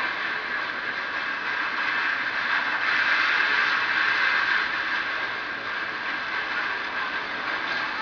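Sea waves washing against a rock breakwater: a steady rushing noise that swells slightly a few seconds in.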